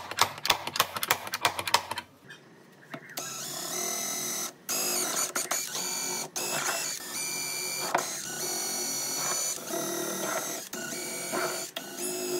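A quick run of sharp clicks, then a small power tool's electric motor running in stretches of one to two seconds, each cut off by a brief stop.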